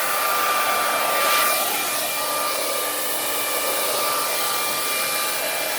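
Handleless hair dryer running steadily: a rush of blowing air with a thin high whine from its motor over it.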